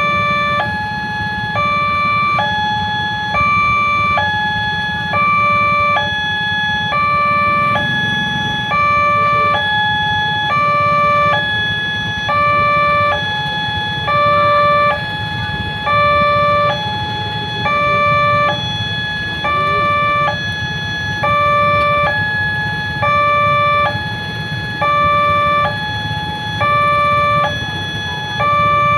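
Railway level-crossing warning alarm sounding its electronic two-tone signal: a lower and a higher tone alternate evenly, each held about a second. This is the warning that a train is approaching and the crossing is closing.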